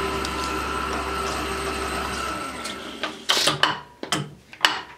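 Milling machine spindle running a ball end mill as it chamfers a tapped hole in an aluminum part: a steady hum with a thin whine. A little over two seconds in, the spindle winds down and stops. It is followed by about four sharp knocks a fraction of a second apart.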